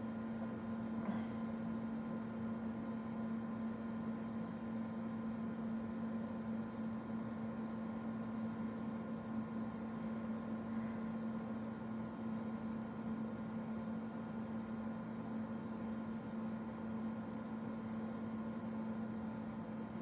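Tektronix TDS5034B oscilloscope booting after power-on: its cooling fans run with a steady hum and an even whoosh. A faint click comes about a second in.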